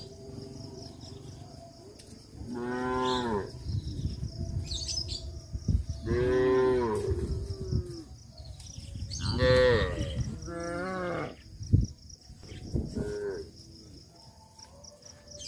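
Cows mooing: three long calls that each rise and fall in pitch, then shorter, fainter moos. There is one sharp knock about three-quarters of the way through.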